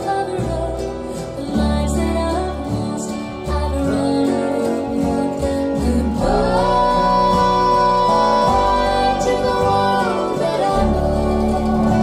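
Country song with a woman singing over guitar and bass, played back through YG Acoustics Carmel 2 loudspeakers and picked up by microphones in the room. A long note is held from about the middle of the stretch.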